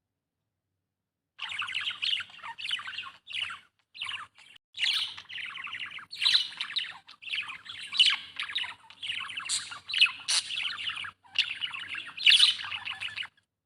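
Budgerigars warbling and chattering: fast, scratchy runs of chirps in phrases a second or two long, broken by short pauses. The chatter starts suddenly about a second and a half in, after dead silence, and stops just before the end.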